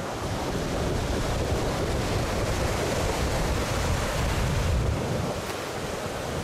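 Surf breaking on a sandy beach, a steady wash of waves, with wind buffeting the microphone in low, gusty rumbles.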